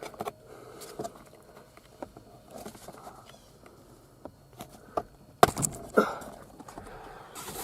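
Handling noise around the steering column: scattered light clicks and rustle, with a few louder knocks about five and a half and six seconds in and again near the end.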